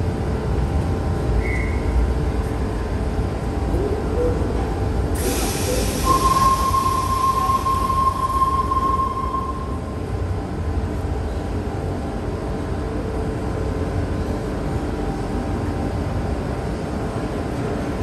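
Tangara electric train standing at an underground platform with a steady low rumble. About five seconds in, its pneumatic doors close with a sudden hiss of air that fades over a few seconds. A steady high beep follows for about three seconds.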